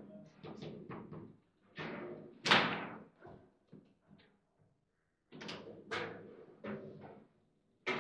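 Table football play: the ball and the rod-mounted figures strike each other and the table in a run of sharp knocks and bangs. The loudest bang comes about two and a half seconds in, with a brief lull after about four seconds. A goal is scored during this stretch.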